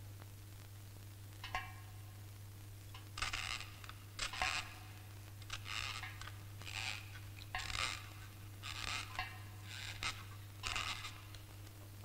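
A series of short, soft scraping noises, about one a second at uneven intervals from about three seconds in, over a steady low hum.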